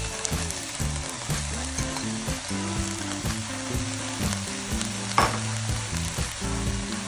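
Shredded carrots and green beans sizzling as they fry in oil in a nonstick frying pan while riced cauliflower is tipped in on top. A single short knock sounds about five seconds in.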